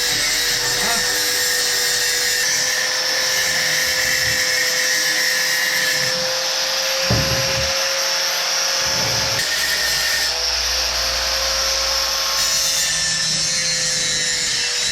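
Angle grinder grinding down the steel frame of an old spark guard, running steadily with a constant whine and a harsh grinding hiss.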